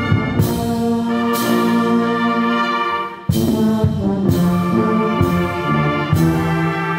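Church brass band of trumpets, trombones, tubas and flutes playing a hymn in held chords. Just before three seconds in the sound drops away briefly, then the whole band comes back in together.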